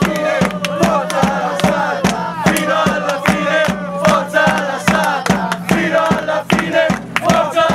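Football supporters chanting together in the stands to a steady beat that lands about two or three times a second.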